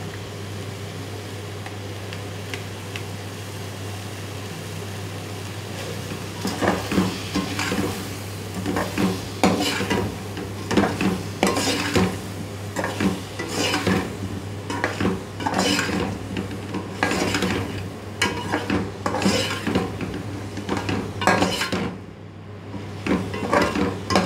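Slotted metal spatula scraping and stirring korma masala into frying chicken, tomatoes and potato in an aluminium pot, at about one stroke a second, with a light sizzle. The stirring starts about six seconds in; before that there is only a steady low hum.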